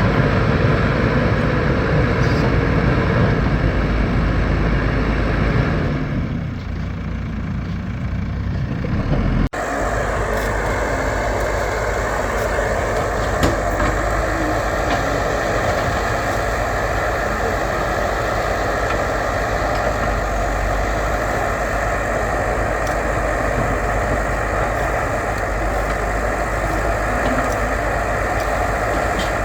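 Backhoe loader's diesel engine running steadily while working, dipping a little about six seconds in and then cutting abruptly to a steadier running sound about nine seconds in.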